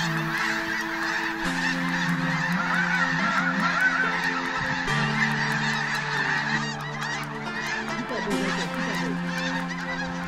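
A large flock of wild geese calling, many overlapping high, yelping calls.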